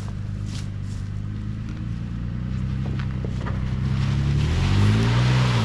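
Off-road 4x4 truck engine running under load, then revving up with its pitch rising and a loud rising hiss over it, cutting off suddenly near the end.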